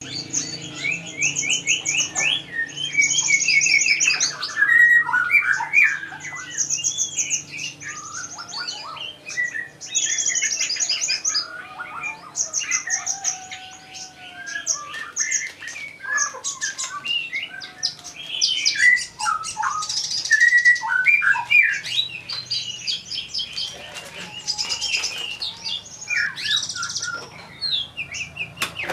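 Kolibri ninja, a sunbird, singing continuously: a varied song of high, fast buzzy trills, sharp chirps and sliding whistled notes, typical of a bird in full song with its learned repertoire. A faint steady hum runs underneath.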